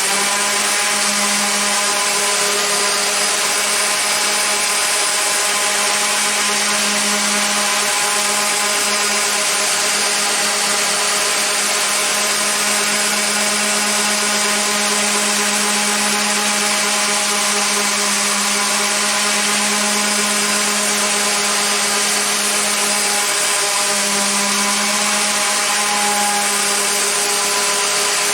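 Mac Allister SOS300 300 W corded random orbital sander running steadily with an even motor hum, sanding saw marks out of a wooden board with 80-grit paper.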